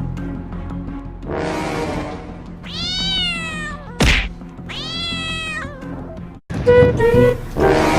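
A cat meowing: two long drawn-out meows that rise and fall in pitch, with a sharp knock between them, over background music. Louder, rougher noise comes in near the end.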